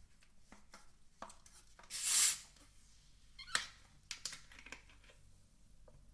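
A short, loud rustling or tearing noise about two seconds in, followed by a handful of sharp clicks and taps in a small room.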